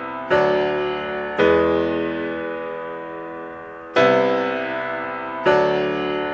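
Slow background piano music: four sustained chords struck about one to two and a half seconds apart, each ringing out and fading.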